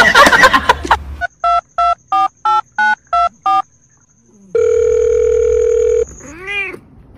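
Telephone-like electronic beeps: seven short beeps at about three a second, then a long steady beep, then a short warbling tone near the end. A loud, jumbled sound before them cuts off about a second in.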